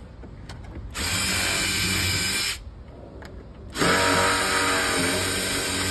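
Makita drill with a 1/8-inch bit pre-drilling pilot holes for screws into a storm door's hinge-side jamb: two steady runs of the motor, about a second and a half and then two and a half seconds long, with a short pause between.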